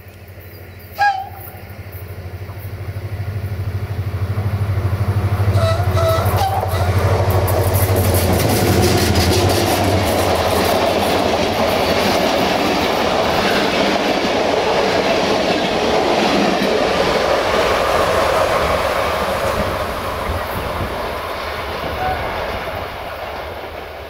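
GM-engined Electroputere LDE diesel-electric locomotive approaching with its engine running and giving a brief horn toot about a second in. It then passes close by hauling passenger coaches, wheels clicking over the rail joints, and the noise fades as the train moves away near the end.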